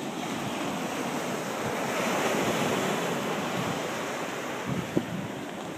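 Ocean surf breaking and washing up the beach, with wind on the microphone; the wash swells about two seconds in, and a short click sounds near the end.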